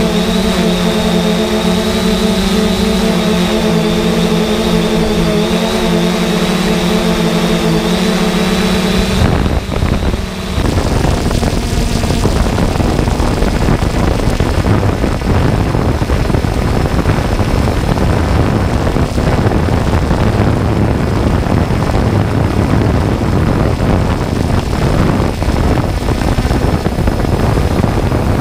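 Quadcopter drone's rotors whining steadily with several held tones. About nine seconds in, the sound switches abruptly to a rougher, rushing noise heavy in the low end.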